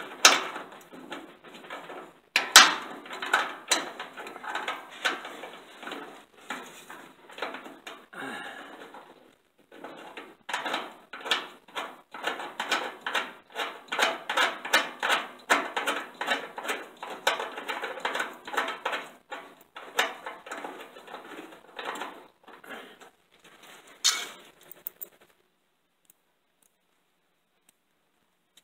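Metal clicks, knocks and rattles of a bolt being fitted to a car's radiator core support by hand, in a dense irregular run that stops near the end.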